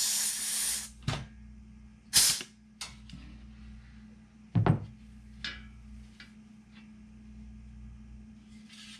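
Pneumatic rivet squeezer setting aircraft rivets: a hiss of air lasting about a second, then a shorter hiss about two seconds in. After that come a few knocks as the squeezer and the aluminium part are handled and set down on a wooden bench, the heaviest about halfway through.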